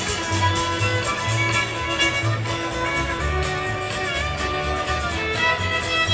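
A live string band plays an instrumental break. A fiddle carries the lead over strummed guitar and a steady pattern of alternating low bass notes.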